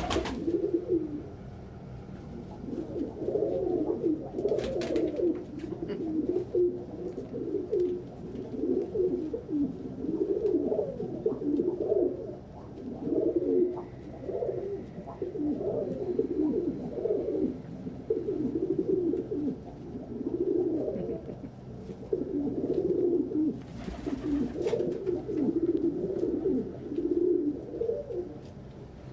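Several domestic pigeons cooing over and over, their low phrases overlapping without a break. A brief rustle comes about five seconds in, and another near the end.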